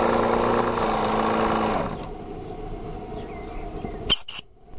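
Martin Baylis twin-cylinder marine steam engine in a model steam launch running fast with a steady hum, which stops about two seconds in. A sharp click follows near the end.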